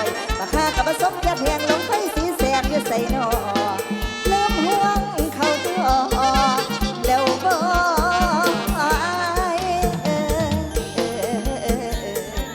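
A live band playing Isan luk thung music: a steady kick-drum beat under a wavering lead melody.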